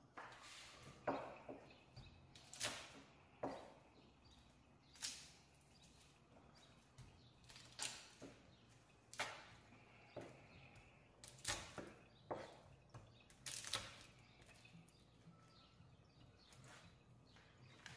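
Scattered sharp knocks and clicks, roughly one a second at uneven spacing, some with a short ring after them: kitchen utensils and dishes being handled.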